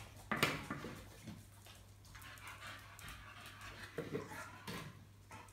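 A sharp plastic clack about half a second in as a PVC pipe scent station is set down on a tile floor, then a Staffordshire bull terrier sniffing in short rapid bursts at the pipes while searching for the target odour.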